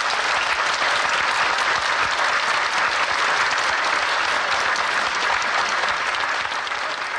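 Crowd applauding, a steady dense clapping.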